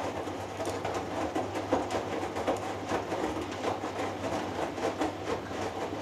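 Hoover Dynamic Next washing machine on its final rinse: the drum tumbling the wet load, with water sloshing and irregular splashes and knocks over a steady low motor hum.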